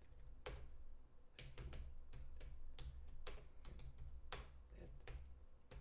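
Typing on a computer keyboard: irregular keystrokes, about three a second, over a low steady hum.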